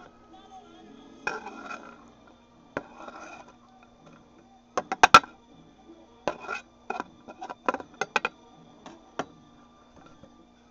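Diced onion being scraped off a wooden cutting board with a kitchen knife into a pot: soft scraping at first, then sharp taps and clinks of the blade on board and pot, the loudest cluster about halfway in.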